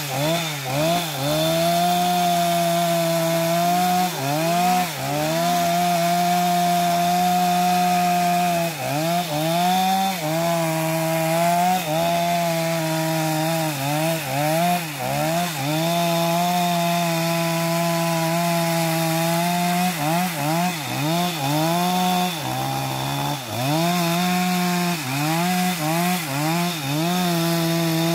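Gasoline chainsaw at full throttle cutting into the trunk of a large eucalyptus tree near its base. The engine pitch sags under load as the chain bites and climbs back again, over and over.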